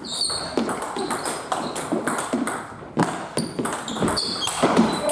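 Table tennis rally: the plastic ball clicking off the rubber-faced paddles and the table top in quick alternation, a sharp knock roughly every half second.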